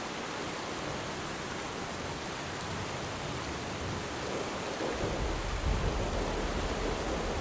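Steady rain falling on water, a continuous hiss. A low rumble of distant thunder comes in about five seconds in.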